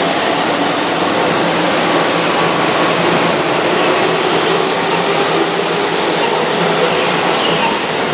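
Keihan Railway electric commuter train running past the platform at speed: a steady, loud rush of wheels on rail with a faint motor hum underneath.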